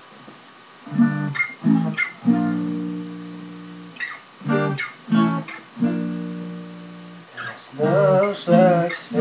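Acoustic guitar strummed in a slow song intro: short chord strikes, some left to ring and fade for a second or more, heard through a lo-fi webcam microphone.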